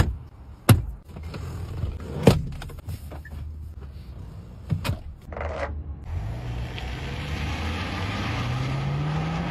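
A few sharp clunks from the SUV's folding rear seat and its latch as the seat-back release strap is pulled and the seat moved. About six seconds in, an engine takes over, running and rising steadily in pitch as the SUV pulls away.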